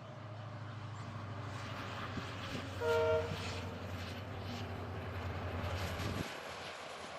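Diesel locomotive hauling a passenger train: a low pulsing engine rumble with wheels clicking over the rail joints, and one short horn blast about three seconds in. The engine rumble cuts off suddenly about six seconds in while the wheel noise goes on.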